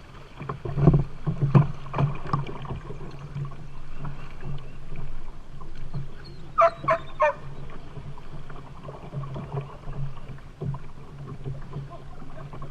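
A small boat on a river, with hollow knocks and clunks against the hull over a steady low hum. A quick run of three short high calls comes about seven seconds in.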